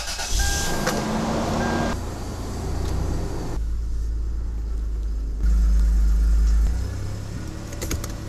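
Toyota 4Runner's engine running as the truck reverses slowly, a continuous low rumble that grows louder for about a second a little past halfway. A high steady tone sounds over it in the first two seconds.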